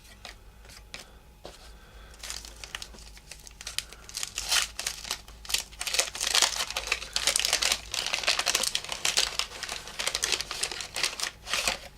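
Wax paper wrapper of a 1984 Topps baseball card pack being torn open and crinkled. A few soft ticks at first, then dense, irregular crackling that starts about two seconds in and grows louder.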